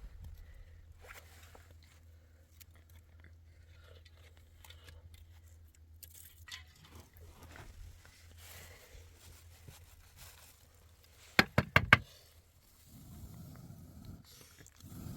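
Faint rustling and scraping handling sounds over a low steady hum, then a quick run of about five sharp knocks a little past eleven seconds in, followed by a low rumbling noise.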